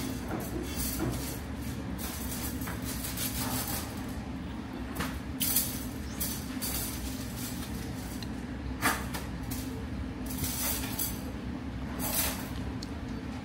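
A steady low rumble of a moving vehicle, with short bursts of hiss and light clinks every few seconds.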